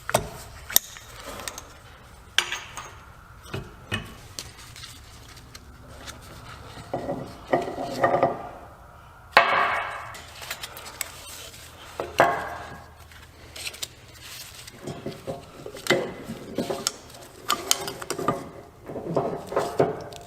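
Steel parts of a Ford 9.75-inch limited-slip differential clinking and clanking as the clutch-pack plates and washers are taken apart and handled: irregular light clinks, several sharper clanks with a short ring.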